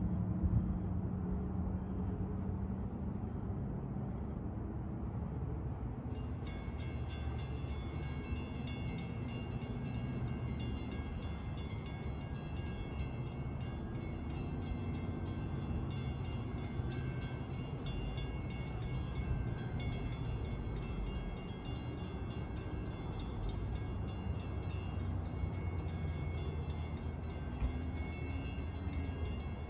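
Low, steady rumble of a train approaching the station. About six seconds in, a warning bell starts ringing steadily with high, metallic tones and keeps on.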